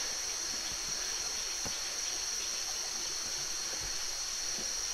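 Steady high-pitched drone of insects in forest, unbroken throughout, over a faint even hiss.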